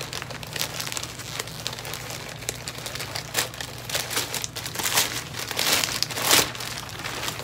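Packaging being unwrapped by hand, crinkling and rustling in irregular bursts, loudest about five to six seconds in.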